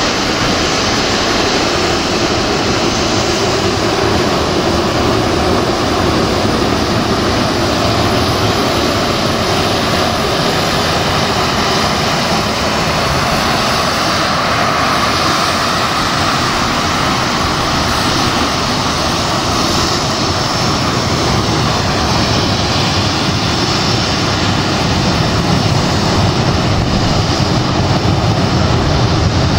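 Jet engines of a four-engine Douglas DC-8 freighter running steadily as the plane rolls along the runway: a continuous jet rumble and whine, with the low rumble growing stronger near the end.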